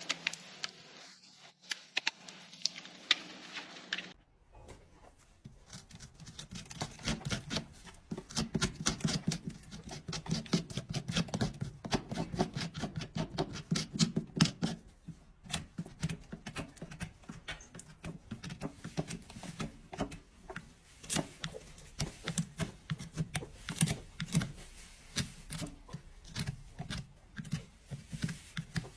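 Hoof trimming tools working on a draft horse's hoof: rapid, irregular scraping and clicking strokes as horn is cut and pared away. The sound changes character about four seconds in, and the strokes grow denser and louder after that.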